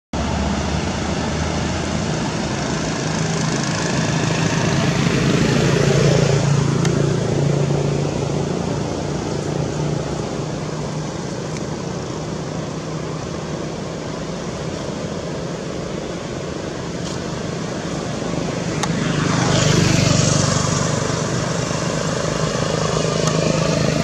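Steady engine noise of motor vehicles, with a low hum, swelling louder about twenty seconds in.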